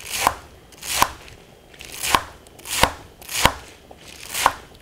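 Chef's knife chopping beet greens on a wooden cutting board: six strokes at a steady pace, each ending in a crisp knock of the blade on the board.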